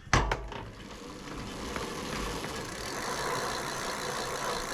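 A sharp knock, then the e-bike's rear wheel and drivetrain spinning with a steady running whir that builds slightly from about a second in.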